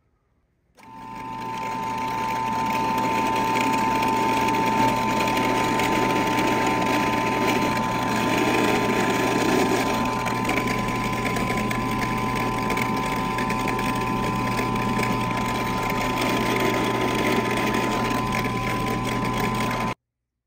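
Benchtop drill press running steadily, its bit cutting into an epoxy-resin skateboard deck. The motor spins up about a second in, holds an even whine, and cuts off abruptly near the end.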